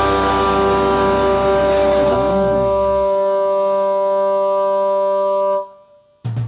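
Live rock band's electric guitars and bass holding one sustained, ringing chord; the deep bass note drops out about halfway through, the chord cuts off suddenly near the end, and a short loud hit follows.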